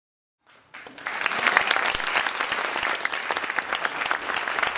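Theatre audience applauding, starting about half a second in and quickly swelling to a steady, dense clapping.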